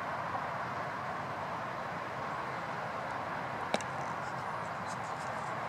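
Steady outdoor background noise, an even hiss and hum, with one sharp click a little past the middle.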